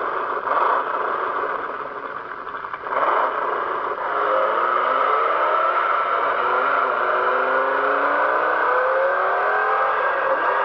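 Recorded 6-litre V8 engine sound played through the HSV REV alarm clock radio's speaker. The engine revs, then accelerates hard from about three seconds in, its pitch climbing through each gear and dropping at an upshift about seven seconds in and again near the end.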